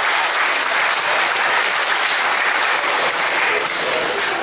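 Audience applauding: dense, steady clapping that eases off near the end.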